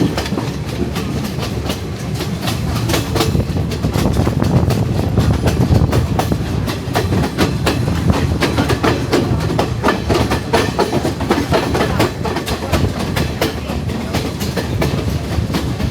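Passenger train running along the track, heard from aboard a carriage: a steady low rumble with rapid, irregular clicking and rattling of wheels over the rails. It is a little louder in the middle.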